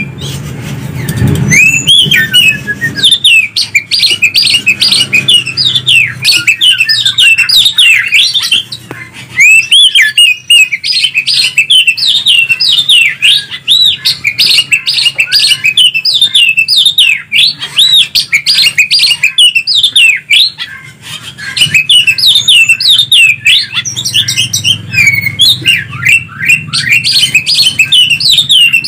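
Greater green leafbird (cucak ijo) and oriental magpie-robin (kacer) singing loudly in a fast, unbroken stream of rising and falling whistles and chirps, with brief lulls about nine and twenty-one seconds in.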